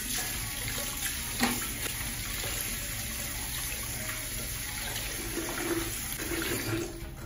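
Kitchen tap running onto fish being rinsed by hand, the water splashing into a steel bowl in a stainless steel sink. One short knock about a second and a half in.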